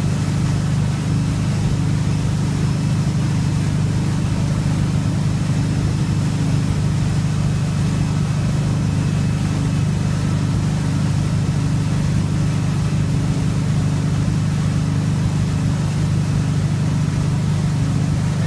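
Tow boat's engine running at a steady speed, a constant low drone, with the rush of water from the wake over it.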